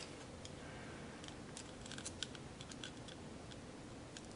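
Faint, scattered small clicks and ticks of a folding knife's metal parts and a small screwdriver being handled during disassembly, as the pivot area is worked loose.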